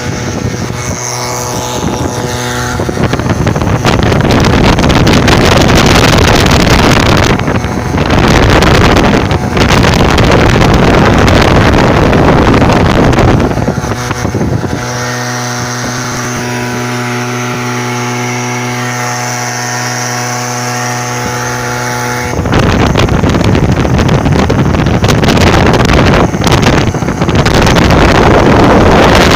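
A motor running steadily with an even hum, while loud wind rushes across the microphone in long gusts several seconds at a time, drowning the hum.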